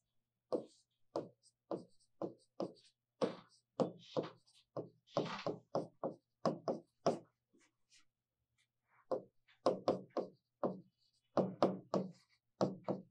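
Chalk knocking and scraping on a blackboard while writing, a quick run of short sharp taps with a gap of about a second a little past halfway.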